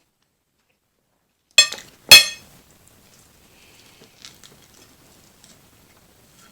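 Two sharp ringing clinks of tableware about half a second apart, the first coming about a second and a half in, followed by a few faint small clicks.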